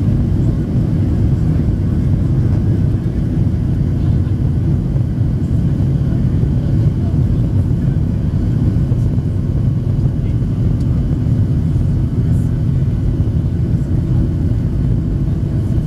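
Steady low cabin rumble of a Boeing 737-700 with its CFM56-7B engines at low thrust, heard from a seat over the wing while the jet taxis, with a faint steady whine above it.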